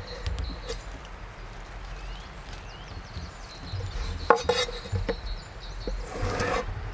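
Large knife cutting pineapple on a wooden board: a sharp knock of the blade on the board about four seconds in, then a longer slice through the rind near the end.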